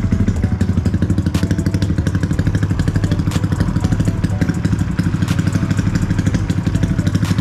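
Honda Wave 125's single-cylinder four-stroke engine idling through an H2 aftermarket stainless exhaust, with a steady, rapid, even beat of about a dozen pulses a second.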